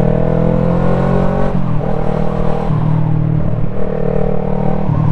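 Motorcycle engine running on the move, its note climbing gently, then dropping about one and a half seconds in and shifting up and down a few more times, over steady road and wind noise.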